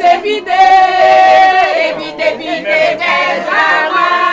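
Women's voices singing and chanting loudly in long held notes that slide up and down, with other voices of a crowd around them.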